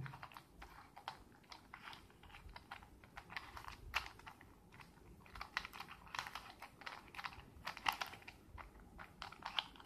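Plastic Rubik's Cube being turned by hand, its layers clicking and rattling in quick irregular runs as moves of an algorithm are made.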